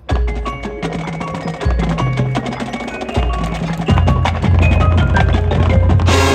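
Marching band music led by its percussion: drums and mallet keyboards such as glockenspiel and marimba come in suddenly and loudly over a low, stepping bass line. Near the end the rest of the band joins in and the sound gets fuller.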